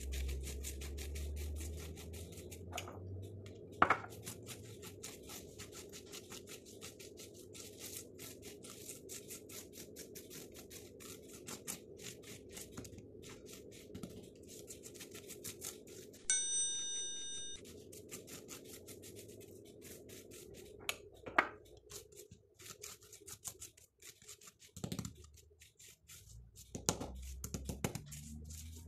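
A metal spoon scraping and tapping as it spreads za'atar and oil paste over raw flatbread dough, making many light scrapes with a couple of sharper knocks. A short bell-like ding sounds about sixteen seconds in.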